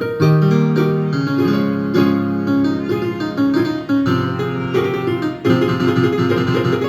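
Instrumental music led by a piano or keyboard, chords and melody notes struck in a steady rhythm.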